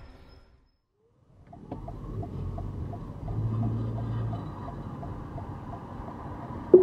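Car driving, heard from inside the cabin: a steady engine and road hum that starts after a brief silence about a second in, with a faint regular ticking about three times a second.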